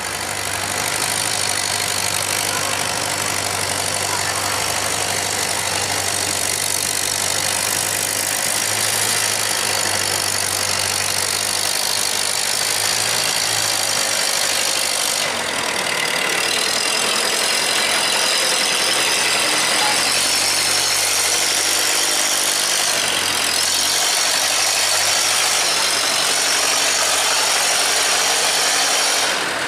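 Long-shaft outboard engine of a steel river boat running steadily at high power, its propeller shaft driving the boat against the current.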